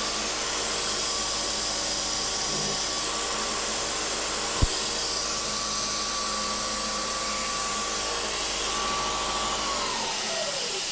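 Vertical knee mill's spindle running at 2800 RPM with a steady whine and the hiss of the mist coolant spray while a quarter-inch hole is peck-drilled in a steel part. There is one sharp click about halfway through. Near the end the spindle is switched off and its whine falls away as it spins down.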